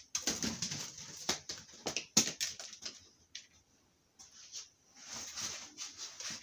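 Rustling and crinkling of foam packing pieces and plastic stretch wrap being handled, broken by a few sharp clicks and knocks, the loudest about two seconds in, and a short lull near the middle.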